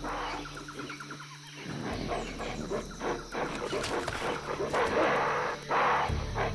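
Animal calls over a low steady drone: a fast, even trill of repeated calls for the first second and a half, then louder, rougher calls, strongest around five seconds in.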